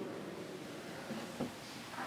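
Quiet church room tone: a steady hiss with faint indistinct sounds and a single soft knock about a second and a half in.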